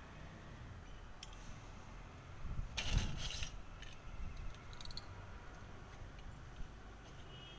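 Laundry being hung out to dry: a brief rattle and clatter of clothes pegs and wet cloth being handled about three seconds in, with a few faint clicks and rustles either side, over a faint low background rumble.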